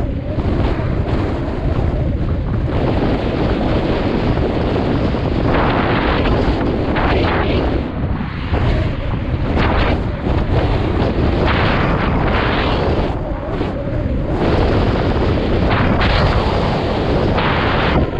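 Wind buffeting the microphone of a GoPro Hero 7 Black action camera on a moving mountain bike: a loud, rushing noise that rises and falls, with a few brief dips.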